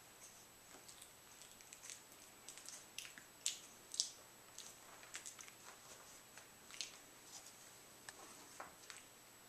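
Soft Coated Wheaten Terrier puppies shuffling and climbing over each other on carpet: faint, scattered scratches and clicks, the two loudest close together near the middle.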